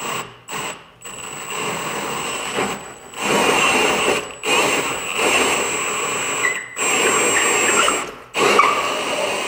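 Cordless drill spinning a large hole saw that cuts into drywall. It opens with a few short pulses of the trigger, then runs in long steady spells of cutting broken by several brief stops.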